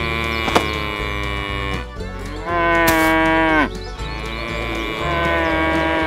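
Cattle mooing: three long moos, the middle one loudest, each dropping in pitch at its end, over background music with a steady low beat.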